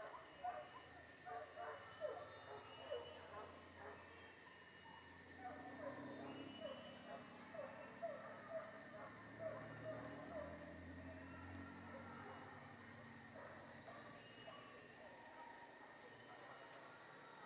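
Forest insects droning steadily at a high, even pitch, with a brief break about twelve seconds in, over faint scattered chirps lower down.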